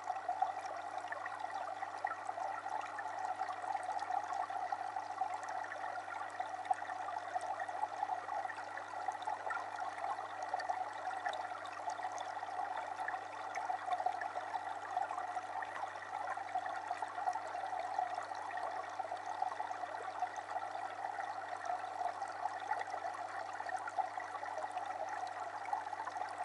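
Steady running, trickling water with no break, and a faint steady low hum beneath it.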